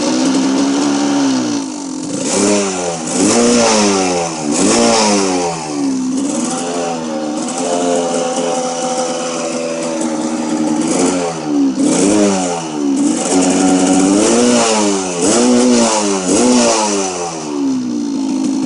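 Kawasaki KDX200 two-stroke single-cylinder dirt bike engine being revved: repeated quick throttle blips that rise and fall back to idle, with one longer steady rev held about eight to ten seconds in.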